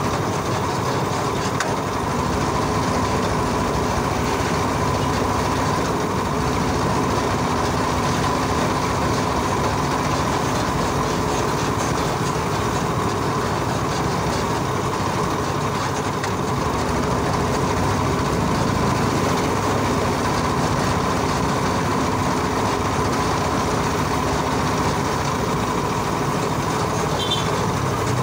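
Steady rattle and rumble of a trisikad (pedal-driven sidecar pedicab) in motion, heard from the passenger seat: the frame shaking and the tyres running on a concrete road, with a faint steady whine.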